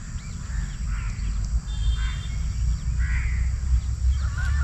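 Crows cawing several times, with other birds calling, over a steady low rumble of wind on the microphone.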